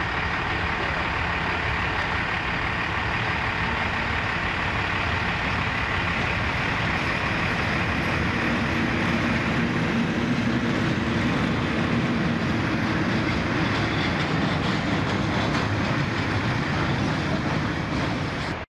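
Class 37/9 diesel locomotive with a Mirrlees engine running past at the head of a steel-coil freight train, followed by the rumble of the wagons rolling by. The sound cuts off suddenly near the end.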